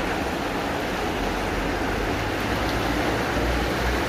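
A wide, muddy mountain river in fast flow, its water rushing steadily with a low rumble underneath.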